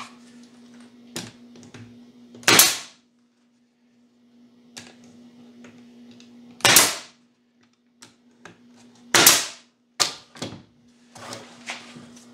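Pneumatic nail gun firing three times, a few seconds apart, each a sharp bang with a short hiss of air, as it nails together a wooden beehive frame. Lighter knocks of the frame pieces being handled come between the shots, over a faint steady hum.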